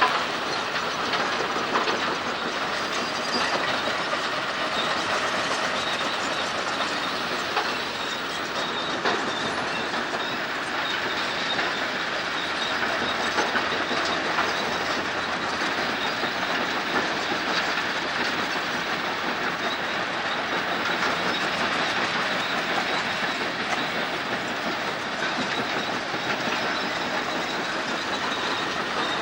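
Kobelco crawler excavator travelling, its steel tracks clattering steadily with scattered small clanks.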